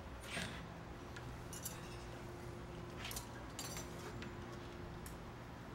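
Scattered faint sharp clicks and clinks, some in quick little runs, over a steady low hum.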